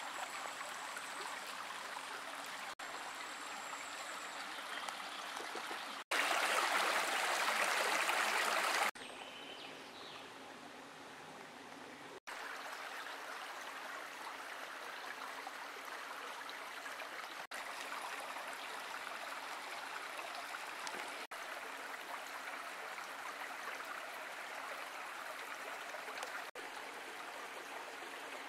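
Small forest creek running shallow over stones: a steady sound of flowing water that changes abruptly at several cuts, loudest for about three seconds starting some six seconds in.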